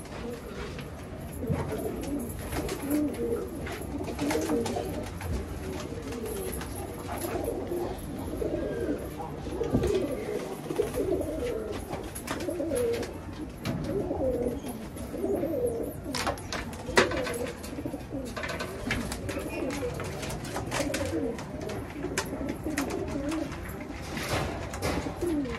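A flock of domestic pigeons cooing continuously, many birds overlapping. Scattered clicks run through it, with one sharp knock about two-thirds of the way through.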